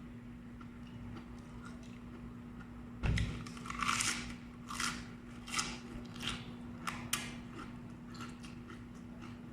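Close-up mouth sounds of eating crisp vegetables: a loud crunching bite about three seconds in, then steady crunchy chewing, roughly one crunch every three-quarters of a second, fading to quieter chewing near the end. A faint steady hum runs underneath.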